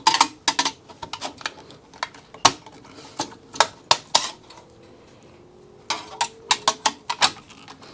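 Irregular sharp metallic clicks and knocks from a server chassis module's metal parts as they are forced apart. There is a short quieter spell in the middle, then a second cluster of clicks.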